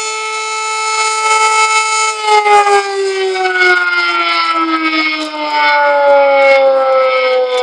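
Hand-cranked Secomak air-raid siren sounding a steady all-clear tone, then slowly winding down in pitch from about two seconds in. A second, higher siren tone comes in about five seconds later and also sags slowly. A few sharp knocks are heard around the time the pitch starts to fall.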